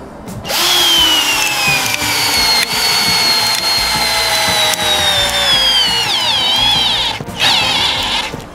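Favourite DC 1802 Promo 18 V cordless drill-driver in low gear driving an 8×100 mm lag screw into wood through a socket adapter: the motor and gearbox whine starts about half a second in and its pitch slowly drops as the screw sinks deeper and the load rises. The pitch wavers near the end, the drill stops briefly, then runs once more for about a second and stops as the screw seats.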